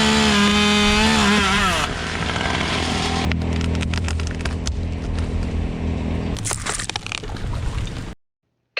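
A small petrol engine running loud, its pitch wavering and dropping after about a second and a half. It settles into a steady low rumble with scattered clicks and knocks, then cuts off abruptly.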